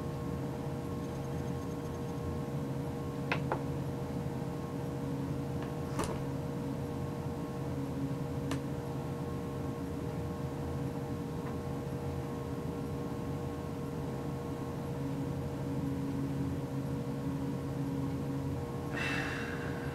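Steady room hum from an unseen electrical or mechanical source, with a few faint clicks and a short noisy sound near the end.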